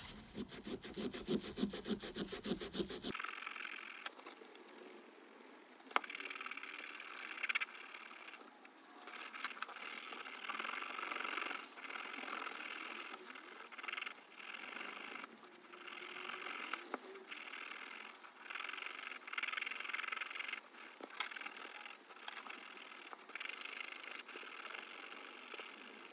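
An abrasive pad scrubbing a lubricated forged aluminium piston crown to strip off carbon deposits. It starts with quick back-and-forth rubbing strokes, about eight a second, then goes on as uneven stop-and-start scrubbing.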